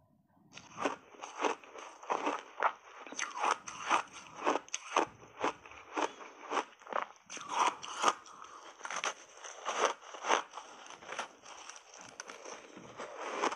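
Close-miked crunching and chewing of a mouthful of frozen buckwheat ice bar coated in matcha powder, starting about half a second in and going on at roughly two crunches a second.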